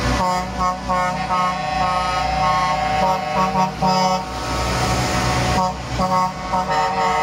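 Truck air horns tooting again and again, in many short blasts and a few longer held ones, over the steady running of heavy truck engines. About four seconds in, a truck passes close by with a loud rush of noise before the tooting resumes.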